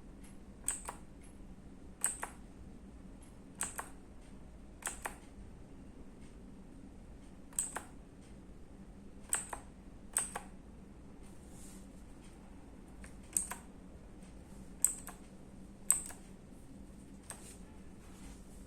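E-Yooso Z686 mechanical keyboard keys pressed one at a time, every second or two, each a sharp click, often doubled as the key comes back up.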